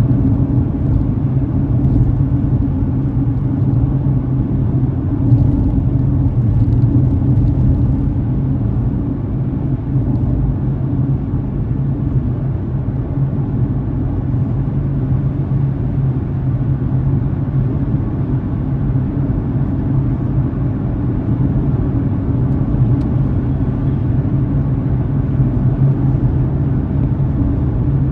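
Car driving at steady speed: an even, low drone of engine and tyre road noise, heard from inside the car.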